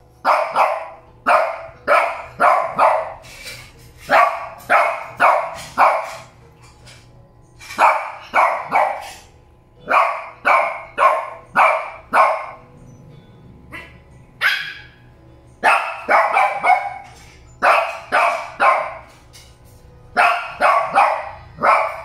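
A Shih Tzu barking: high, sharp barks in quick runs of three to five, with pauses of a second or two between runs.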